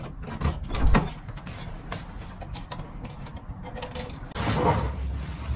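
Handling noises: a couple of light knocks about half a second apart near the start, then a stretch of cloth rustling about four seconds in as a jacket hanging on a wall hook is handled.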